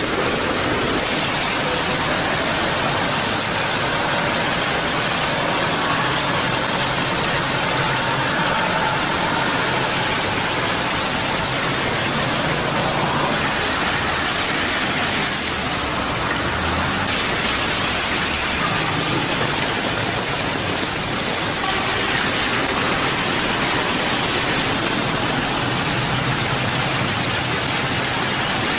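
Heavy rain falling in a steady hiss on a city street, with passing traffic: tyres swishing through water on the wet road and engines running underneath.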